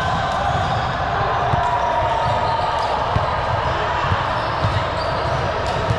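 Indoor gym during a volleyball game: balls thudding on the court, a few sharp hits, and distant voices, all echoing in the hall.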